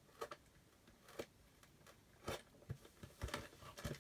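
Faint, scattered clicks and taps of a cardboard toy box being handled and opened, about six in all.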